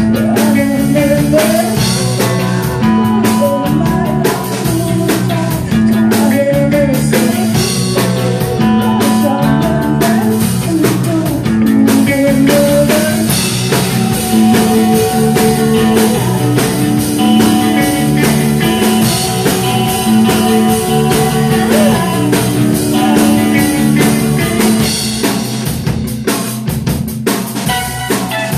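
Live rock band playing: distorted electric guitars, bass and a Pearl drum kit driving a steady beat, with a woman singing at times.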